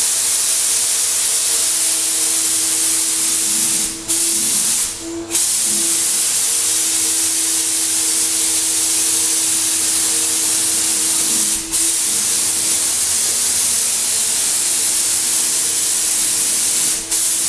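Graco HVLP 9.5 turbine sprayer spraying paint through its gun: a steady, loud hiss of air with a steady hum under it, dipping briefly four times.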